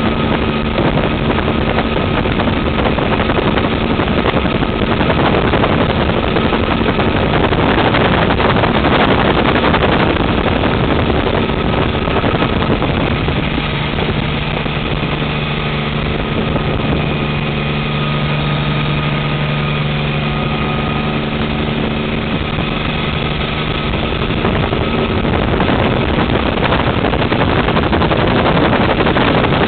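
Bell 47 helicopter's piston engine and rotor running steadily loud, heard from inside the cockpit as it lifts off and climbs away. A stronger low hum comes in partway through.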